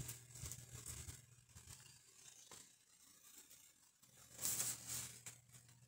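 Faint scattered rustling over a low steady hum. The hum drops out for about two seconds, then a short burst of hiss about four and a half seconds in is the loudest part.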